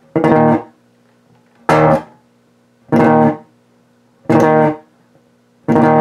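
Warwick Rockbass Infinity electric bass played through an amp, a three-string chord (A string 6th fret, D and G strings 8th fret) struck five times at an even pace, each chord stopped short after about half a second.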